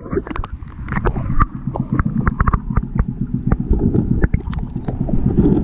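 Underwater sound from a camera below the boat: a muffled low rumble of moving water with many scattered sharp clicks and knocks.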